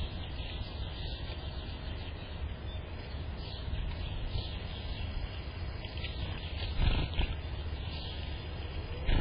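Outdoor ambience: small birds chirping intermittently over a steady low rumble, with a brief knock or rustle about seven seconds in.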